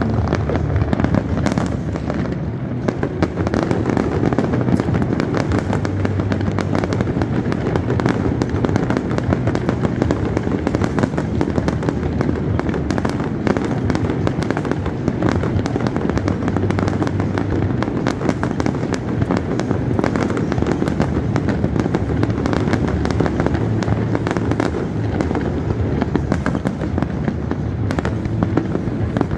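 Aerial fireworks display: a dense, unbroken run of bangs and crackling from many shells bursting one over another.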